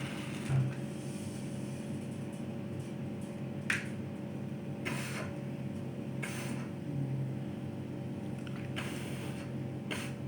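Wooden matches being struck against the side of a matchbox to light a candle: several short scratches a second or so apart, with a steady low hum underneath.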